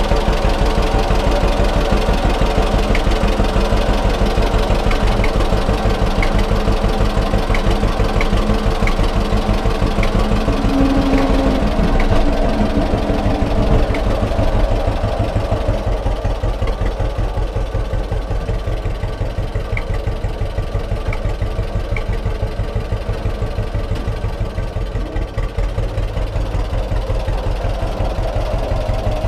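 John Deere AR tractor's two-cylinder engine running with a steady, even popping beat. It grows a little fainter about halfway through as the tractor drives down off the trailer and moves away.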